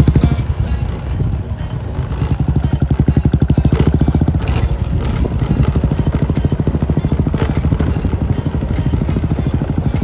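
A vehicle engine running steadily, with a fast low throb.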